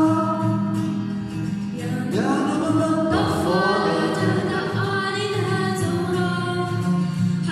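A girl's voice singing a slow Arabic song with long held notes and upward slides about two and three seconds in, accompanied by a strummed acoustic guitar.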